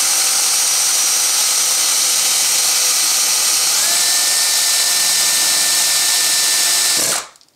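Cordless drill running under load, its bit boring out a rivet in a Saiga rifle receiver: a steady, loud whine with a grinding edge. Its pitch rises a little about four seconds in, and it stops abruptly near the end.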